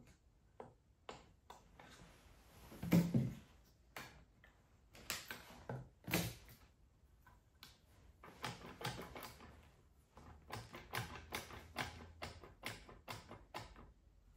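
Metal clicks and knocks from a Type 9 gearbox casing and its internals being handled and worked on a workbench, with a louder clunk about three seconds in and another about six seconds in, then a run of quick clicks near the end.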